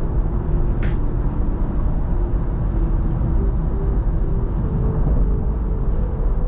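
Steady road and engine rumble inside a car cruising on a freeway, with a short click about a second in.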